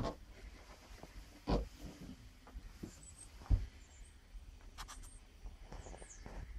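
A few dull knocks and soft rustles from someone moving about while filming handheld, three of the knocks heavier than the rest. Faint high chirps come and go between them.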